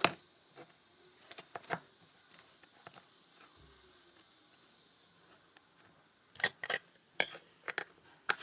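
Glitter slime being put back into its plastic container: scattered light clicks and taps of plastic being handled, with a louder cluster of clicks about six and a half to seven seconds in.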